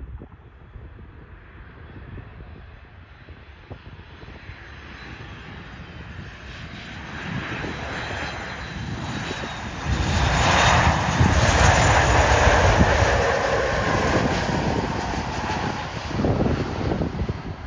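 Jet engines of a Ryanair Boeing 737 coming in to land. The sound grows steadily louder as the plane approaches, is loudest from the middle on as it passes close, then eases off a little as it nears the runway. Wind rumbles on the microphone at the start.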